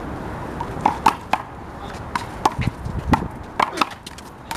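Rubber handball (the big blue ball) in a one-wall rally: a run of sharp, irregular smacks as it is slapped by hand and bounces off the wall and the court.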